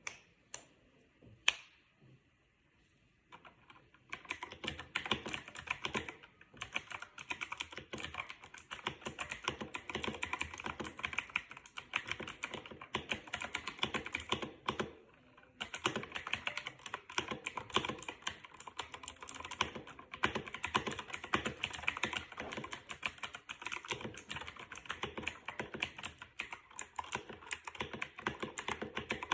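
Cheap computer keyboard being typed on fast, in a dense run of clicking keystrokes. After a couple of lone key clicks, steady typing starts about four seconds in, with one brief pause about halfway.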